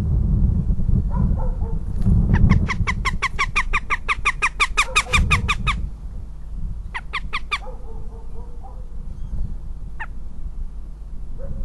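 Northern goshawks calling while mating: a rapid, evenly paced kek-kek chatter of about eight calls a second for several seconds, then a short burst of four more. A low rumble runs under the first half.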